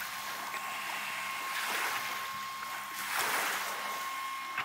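Small waves washing on a sandy lake shore, a steady hiss that rises briefly about three seconds in, with a faint steady high tone underneath.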